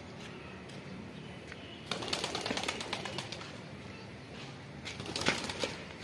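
Pigeons' wings flapping in take-off: a run of rapid wing beats about two seconds in lasting over a second, and a shorter, louder run near the end.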